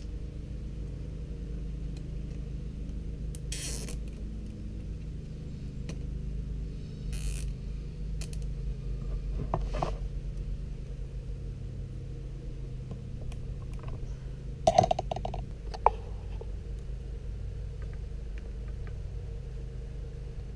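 Plastic zip ties being pulled tight around motorcycle transmission gear shafts, each pull a short ratcheting zip, with light clicks of handling, over a steady low hum. A few sharp metallic clinks about fifteen seconds in are the loudest sounds.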